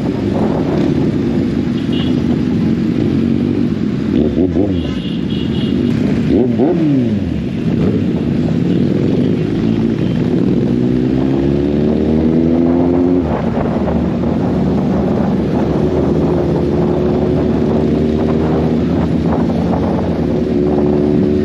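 Kawasaki Z800's inline-four motorcycle engine running under way. Its revs fall sharply around four to seven seconds in, then climb steadily around ten to thirteen seconds in as it accelerates.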